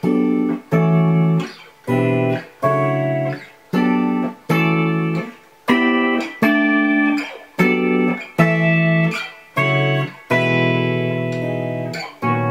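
Clean PRS electric guitar played with the fingers, no pick, through a harmonizer set to a perfect fourth, playing a verse progression of major and minor triads. Each chord is struck and rings briefly before being cut off, about one every two-thirds of a second, and one longer chord is held near the end.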